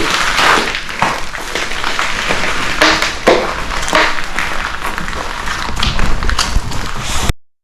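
Scattered taps and knocks over a steady rushing noise, cut off abruptly near the end.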